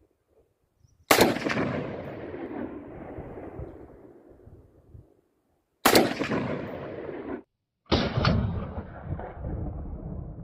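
.223 (5.56 mm) Krinkov-style rifle fired single shots a few seconds apart. Each very loud report is followed by a long echo that dies away.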